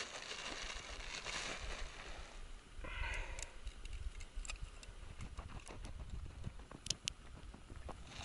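Scattered small clicks and taps from a pike tip-up's spool and frame being handled and set over the ice hole, with a steady low rumble of wind on the microphone.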